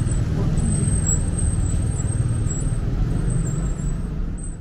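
City street ambience: a steady low rumble of road traffic, with a thin high-pitched whine over it, fading out near the end.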